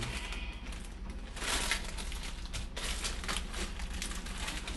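Plastic ramen noodle packaging crinkling in irregular bursts as it is handled and emptied over a pot.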